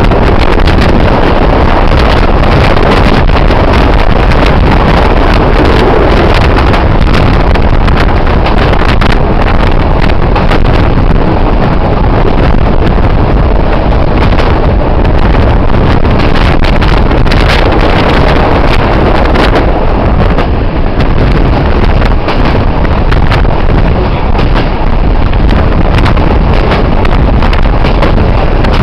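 Loud wind buffeting the microphone at an open window of a moving passenger train, over the steady running noise of the coach on the track, with many short clicks and clatter from the wheels on the rails.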